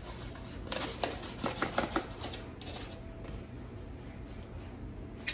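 Light kitchen handling noises: a flurry of taps, scrapes and rustles about one to two seconds in, then a few fainter ones, as flour is scooped out of its container for measuring.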